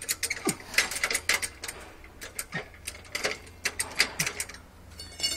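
Hand work under a pickup truck's front end: irregular sharp clicks and light knocks, several a second, with a few short squeaks falling in pitch.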